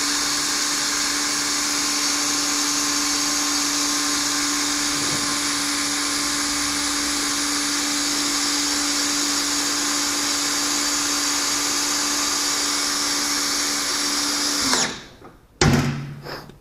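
Cordless drill running steadily at one constant speed, turning a small hydraulic gear pump that pushes a 2-inch cylinder to tip up the cart's dump bed. It stops about 15 seconds in, followed by a single sharp knock.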